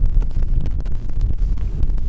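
Wind buffeting the microphone: a loud, steady low rumble, with scattered small clicks.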